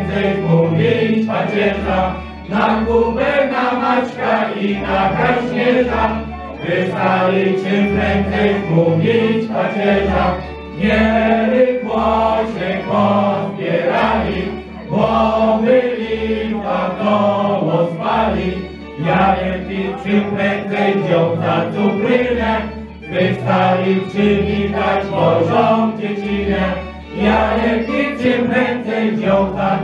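A mixed group of men and women singing a song together, some into microphones, over a low bass accompaniment that comes in a steady rhythm.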